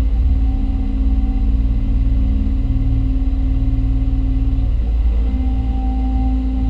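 Hyundai Robex 220-9A LC excavator's diesel engine and hydraulic pumps heard from inside the cab: a steady low engine drone with a hydraulic whine on top, which dips briefly about five seconds in and comes back as the boom and bucket are worked to compact a trench.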